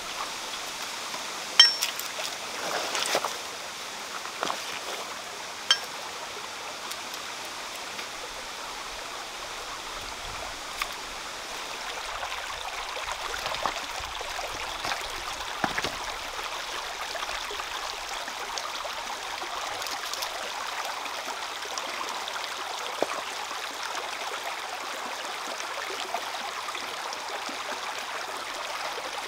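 Shallow rocky stream flowing steadily over stones, a constant babbling hiss, with a few short sharp clicks, the loudest about two seconds in.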